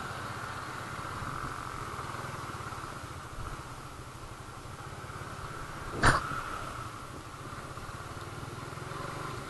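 Suzuki Raider 150 Fi's single-cylinder engine running steadily at low revs as the motorcycle rolls downhill in gear with the throttle closed. One sharp clack about six seconds in.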